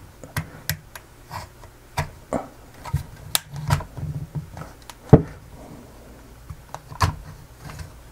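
Spudger prying at the snap-fit clips around the edge of a laptop battery's plastic and metal case: irregular clicks and snaps, the loudest about five seconds in and another sharp one near seven seconds.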